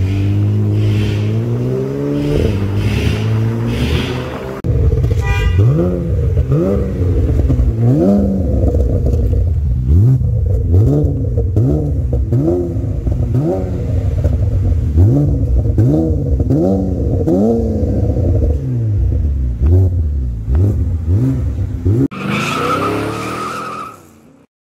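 Porsche Panamera engine through an aftermarket non-valved exhaust, running steadily at first. It is then blipped again and again, about once a second, each rev rising sharply and dropping straight back. Near the end a brief, different sound effect takes over and then cuts to silence.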